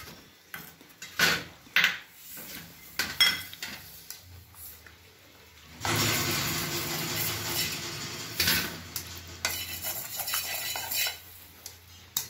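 Metal kadai knocking and clinking against pan tongs and a steel plate, then a spatula scraping roasted poppy seeds out of the pan in a long rasp about halfway through, with shorter scrapes after it.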